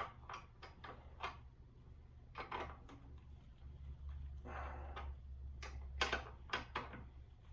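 A 15 mm wrench tightening a fat-tire electric bike's axle nut: irregular clicks in several small clusters as the wrench is worked and reset on the nut, over a steady low hum.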